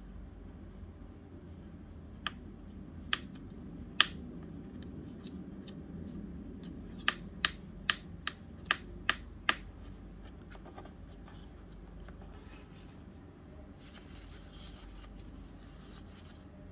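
Light, sharp clicks of fingers against a miniature metal baking pan as dough is pressed into it: three spaced clicks, then a quick run of seven at about two and a half a second. Faint paper rustling near the end.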